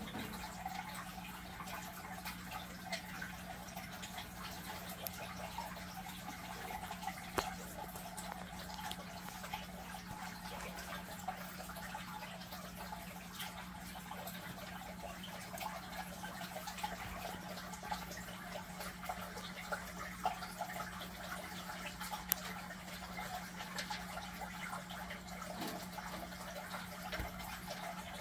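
Water in an aquarium trickling and dripping steadily over a steady low hum, with scattered small clicks.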